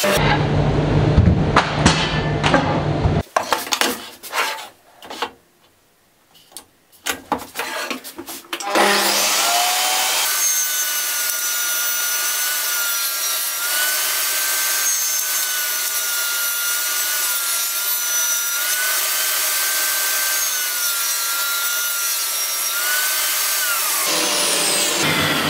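Portable table saw cutting pine, stopping abruptly about three seconds in, followed by a few scattered knocks. About nine seconds in the saw starts up with a rising whine and runs steadily through a cut in a narrow pine strip, then winds down near the end.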